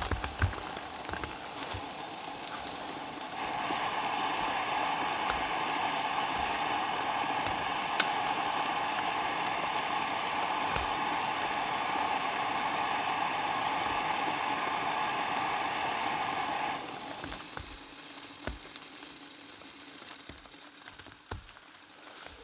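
Jetboil-style gas canister stove burning under a pot of water at a full boil: a steady hiss. It cuts off about seventeen seconds in as the gas is turned off, and a fainter, fading noise is left.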